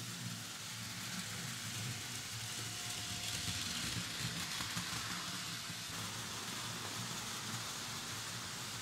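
Märklin H0 model trains running on metal M-track: a steady rolling rattle of wheels over the tinplate rails with a low hum beneath it, a little louder in the middle as a train passes close.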